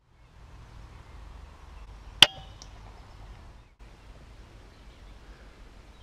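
A single shot from a Weihrauch HW100KT PCP air rifle: one sharp crack with a brief ring, followed a moment later by a faint tick, over a steady low background hiss.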